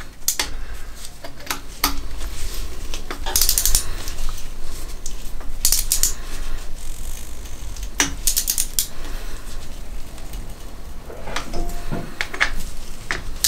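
Small torque wrench's ratchet clicking on the cam carrier bolts of a Honda CB750 SOHC cylinder head, in several bursts of quick metallic clicks, as the bolts are brought to a first-stage torque of 9 Nm.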